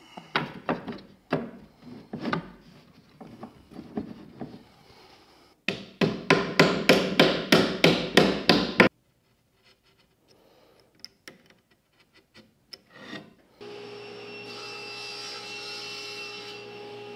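Cherry frame parts knocking and rubbing as a loose-tenon frame is dry-fitted in pipe clamps, then a quick run of about a dozen mallet taps to seat the joints. Near the end a table saw's motor starts and runs with a steady hum.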